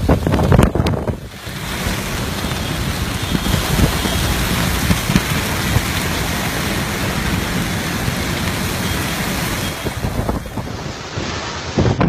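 Windstorm with heavy rain: a loud, steady rush of wind and rain, with gusts buffeting the microphone. A few sharp knocks in the first second or so, with brief lulls near the start and near the end.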